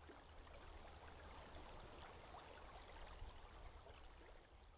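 Faint ambience of a river: a low rumble under a light trickling hiss with small scattered ticks, fading out near the end.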